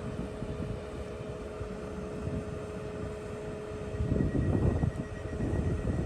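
Trenitalia Pop electric train starting to depart: a steady electrical hum with two held tones, then about four seconds in one tone drops out and a louder low rumble rises with a faint higher whine as the train begins to move.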